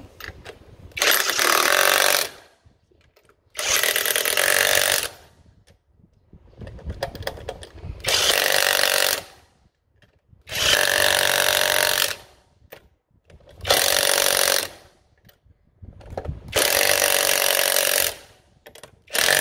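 Electric impact wrench with a 21 mm socket hammering wheel lug nuts tight, in repeated bursts of about a second and a half with short pauses between them.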